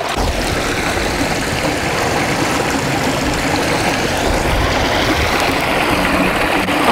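A nearby stream rushing steadily, a constant even water noise.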